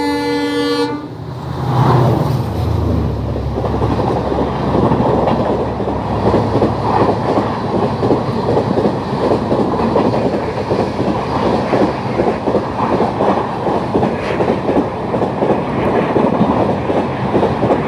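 Train horn sounding and cutting off about a second in. The express then runs at speed, its wheels clattering rapidly and evenly over the rail joints.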